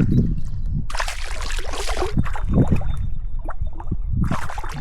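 Water splashing and sloshing in two bursts, about a second in and again near the end, over a steady low rumble.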